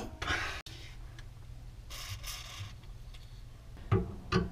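Screwdriver working at the rusted mounting screws of a garbage disposal's sink mount: faint scraping of steel on metal, with a couple of sharp clicks near the end.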